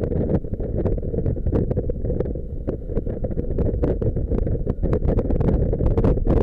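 Wind buffeting the microphone of an action camera on a moving motorcycle, a gusty low rumble over the bike's road noise, growing a little louder near the end.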